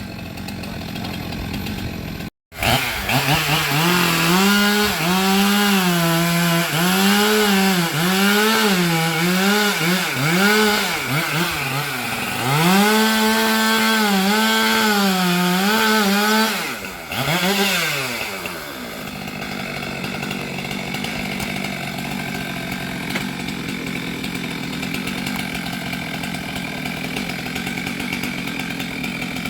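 Stihl MS 462 two-stroke chainsaw running at high revs while cutting sengon wood, its pitch sagging under load and recovering over and over. It breaks off briefly about two seconds in. Near two-thirds through it revs once more and falls away to a steadier, quieter sound.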